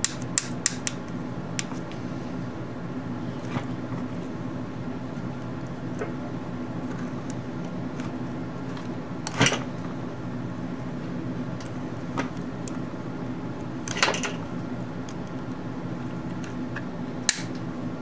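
Wire cutters snipping and trimming back a headlight harness's wires: scattered sharp clicks, the loudest about nine and fourteen seconds in, over a steady low hum.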